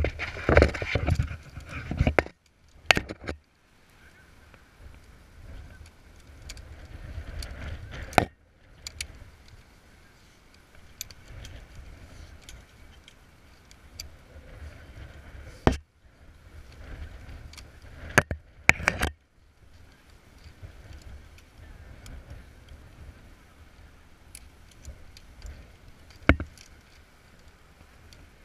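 Metal climbing hardware (carabiners, rope clamps and a rappel descent device) clicking and knocking a handful of times as rope gear is handled and rigged, two of the clicks close together about two-thirds of the way in. Underneath runs a steady low rumble of wind on the camera microphone.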